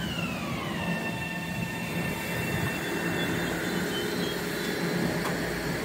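Metro-North M7A electric multiple unit's propulsion whine falling in pitch as the train brakes to a stop at the platform. It then settles into a steady lower whine over a low rumble.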